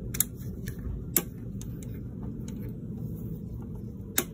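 A few sharp clicks and fainter ticks from small parts and hardware being handled and fitted during assembly of an electronics rack unit. The loudest click comes near the end, over a low, steady background noise.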